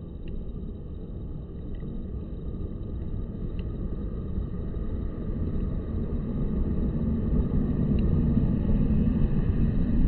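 Low rumble of a passing vehicle's engine, growing steadily louder.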